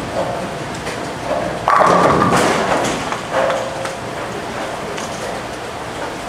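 Bowling ball rolling down the lane, then a sudden loud crash and clatter of pins a little under two seconds in as the ball strikes the rack.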